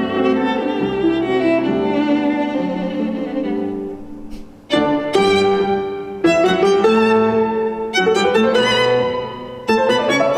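Recorded violin music played back over hi-fi loudspeakers: a slow melody with vibrato that fades about four seconds in, then picks up again with fresh phrases.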